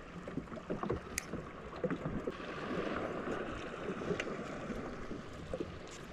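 Wind and sea noise in a small open boat, with a few sharp ticks from handling a spinning rod and reel, about a second in and again about four seconds in.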